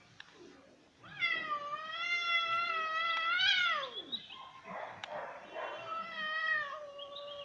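Domestic cat yowling defensively: one long drawn-out yowl that rises a little and then drops off, a rough hissing stretch, then a second, shorter yowl.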